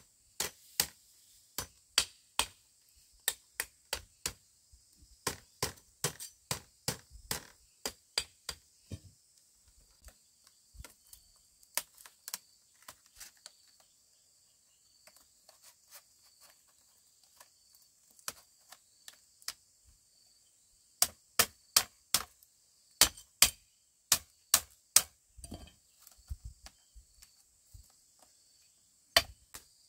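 Repeated sharp strikes of a hand tool on bamboo or wood, chopping or hammering, in irregular runs of about two to three blows a second with short pauses. A louder run of blows comes about two-thirds of the way in.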